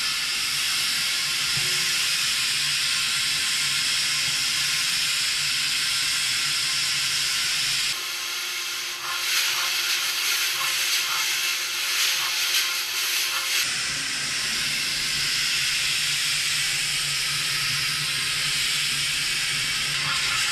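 Rotating star-rolling pan turning, with a steady hissing rattle of small black-powder fireworks stars tumbling against the metal, over a low motor hum. From about 8 s to 14 s the hum drops away and the patter of the rolling grains comes through as many fine ticks.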